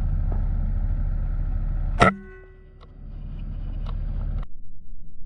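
Strong wind rumbling on the microphone, with one sharp crack about two seconds in followed by a brief faint ringing. The rumble stops suddenly near the end.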